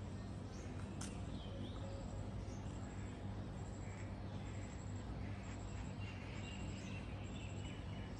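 Faint outdoor background: a steady low hum with a few scattered bird calls.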